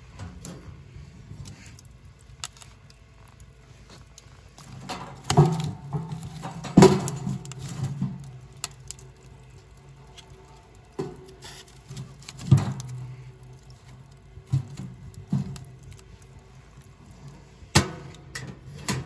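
Handling noises at a wood stove: scattered knocks and clunks with light rustling between them, about seven louder knocks spread through.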